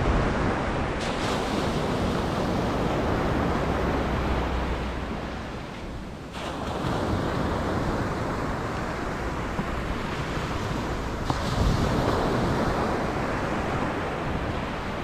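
Gulf surf washing onto the beach, with wind buffeting the microphone. The wash swells and eases, dipping briefly about six seconds in and building again about twelve seconds in.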